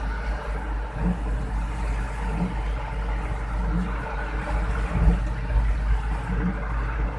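Vehicle engine and road noise heard from inside the cab while driving on a wet road in heavy rain, with the steady hiss of rain and spray on the vehicle. A soft low knock repeats about every second and a quarter.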